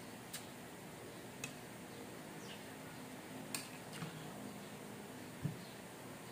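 Light eating sounds over quiet room tone: a handful of faint, scattered clicks of a spoon against a dish, and a soft thump near the end.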